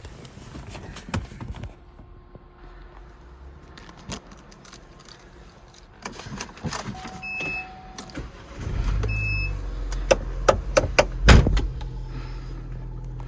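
Clicks from the car's controls and two short electronic beeps, then the Vauxhall Cascada's engine starts about eight and a half seconds in and settles into a steady idle, with a few sharp clicks over it.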